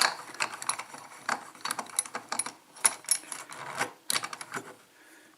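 Irregular small metallic clicks and taps from handling a pin-tumbler lock and lock-picking tools, dying away near the end.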